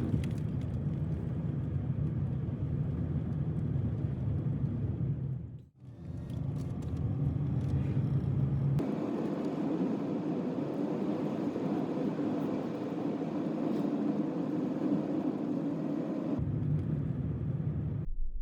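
Steady rumble of a vehicle on the move, road and engine noise, with a brief drop about six seconds in and sudden shifts in its tone around nine and sixteen seconds in.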